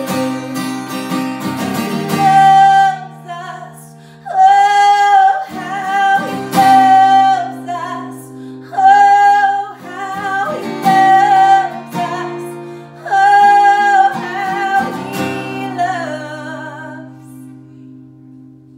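A woman singing while strumming a steel-string acoustic guitar, in several held, sung phrases. Near the end her voice stops and the last guitar chord rings on and fades away.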